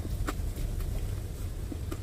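Steady low rumble inside a vehicle's cab, with a light click about a quarter second in and two faint ticks near the end.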